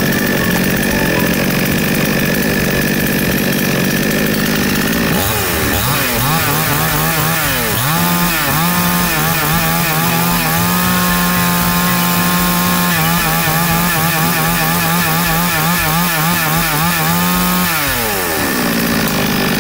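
DEREAL 62cc two-stroke gas chainsaw running at idle, then revved on the throttle trigger. There are a few quick revs up and down about five seconds in, then it holds at high revs for about ten seconds and drops back to idle near the end.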